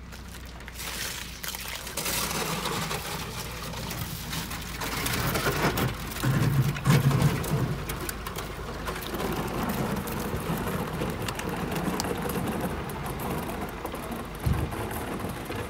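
Wooden boat sliding off its trailer into the water: splashing and sloshing around the hull and trailer with irregular crackles and scrapes, loudest about halfway through, over a low steady hum. A dull thump near the end.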